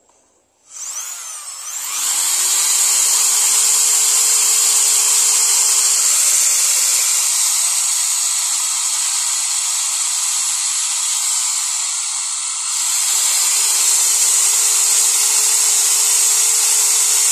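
Handheld electric drill spinning up about a second in and then running steadily at speed while boring a 2 mm hole through a small teak block. It eases off briefly about two-thirds of the way through, then picks up again.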